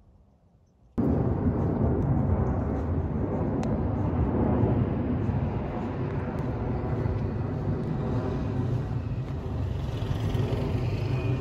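Outdoor city street ambience: a steady rumble that starts abruptly about a second in.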